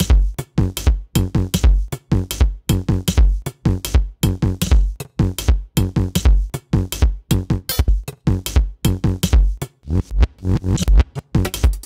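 Electronic music with a steady, fast drum-machine beat and heavy bass.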